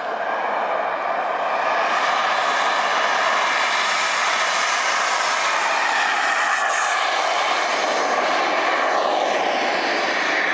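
Small remote-controlled model plane's motor and propeller running with a steady high whine. It grows louder about two seconds in, and its pitch dips and shifts near the end as the plane moves.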